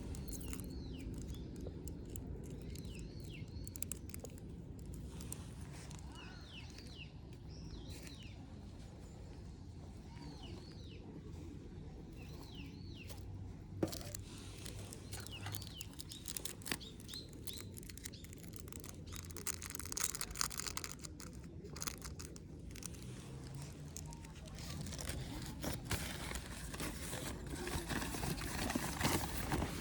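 Small birds chirping in repeated short, curving calls, most of them in the first third. Later come scattered clicks and patches of crackling over a steady low outdoor rumble.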